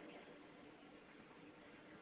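Near silence: faint room tone with a weak steady low hum.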